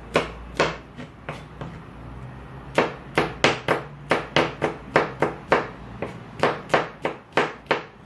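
Kitchen knife chopping chilies on a cutting board: a few spaced chops, a short pause, then a quick steady run of about four chops a second.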